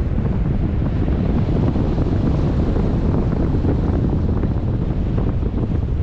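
Wind from a paraglider's flight buffeting the microphone: a steady, low rumble.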